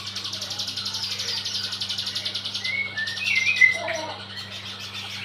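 Ciblek gunung (a mountain prinia) singing: a rapid, high chattering trill for about the first three seconds, then a few short chirps. A steady low hum runs underneath.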